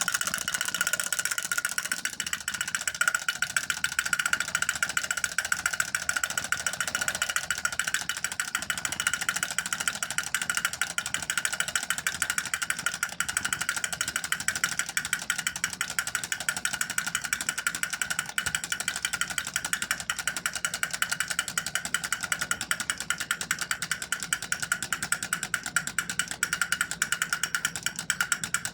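Battery-operated Mickey Mouse drumming toy running: a fast, even rattle of small drum taps over a steady high hum from its mechanism.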